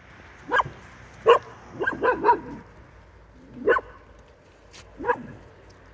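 A dog barking in short single barks, about seven of them, with a quick run of three about two seconds in.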